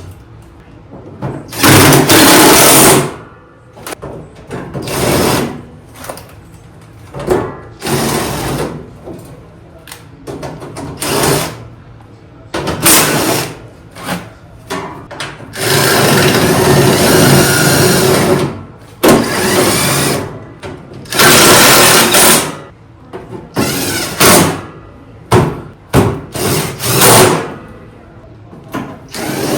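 Power driver running bolts in to fasten sheet-metal shrouding, in repeated bursts of one to three seconds, the longest about halfway through, with handling clatter between them.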